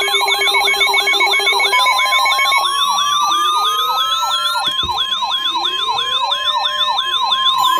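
Several electronic siren and alarm tones layered together. A fast yelping siren sweeps about three times a second throughout, over a long steady tone that slowly rises in pitch. Pulsing beeps stop about two and a half seconds in, and slower rising wails come every couple of seconds after that.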